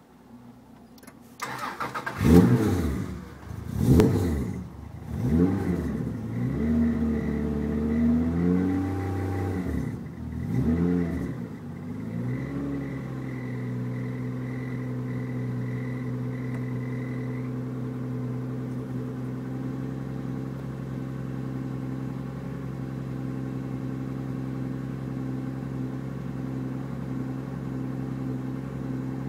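Subaru EG33 3.3-litre flat-six cold-starting, catching about a second in. It is revved up and down in several sharp blips over the next ten seconds, then settles into a steady idle on a cold engine.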